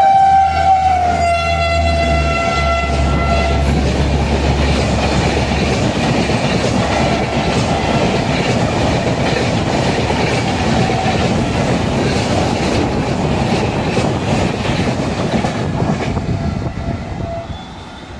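WAP-4 electric locomotive sounding its horn for about four seconds as it passes at speed, the pitch stepping down about a second in. The train's coaches then rush past with a steady noise of wheels on rails for roughly thirteen seconds, fading near the end.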